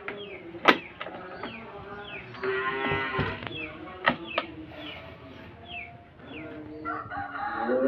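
Chrome butterfly latch on an aluminium-edged flight case being turned and snapped, with sharp metal clicks about a second in and twice around four seconds in. Two drawn-out low calls sound behind it, one in the middle and one near the end.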